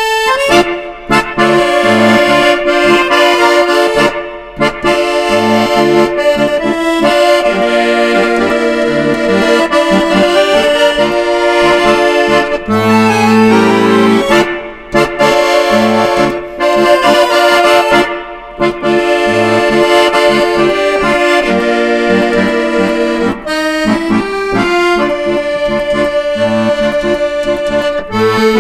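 Tango music led by an accordion, with held chords over a rhythmic bass line and a few brief pauses between phrases.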